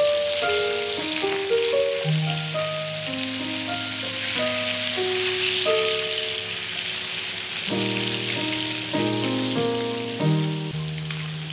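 Katla fish steaks sizzling steadily as they shallow-fry in hot oil in a frying pan, under background instrumental music playing a melody of held notes.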